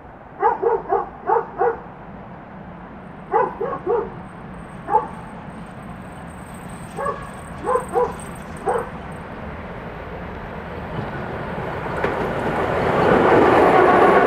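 A dog barking in three short runs of four or five barks each. Then an electric locomotive hauling a freight train of hopper wagons approaches: its rumble rises from about ten seconds in and is loudest near the end as it reaches the camera.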